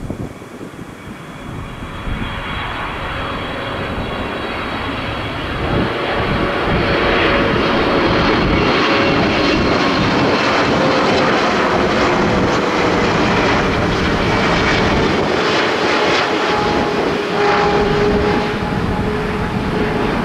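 Boeing 777-200LR's twin GE90 turbofan engines on final approach, growing louder over the first several seconds and then holding steady as the jet passes close, with a whine whose pitch slides slowly lower.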